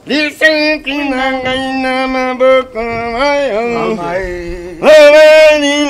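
A man singing alone, with no instruments, in long held notes that bend and waver in pitch. A louder, higher note starts about five seconds in.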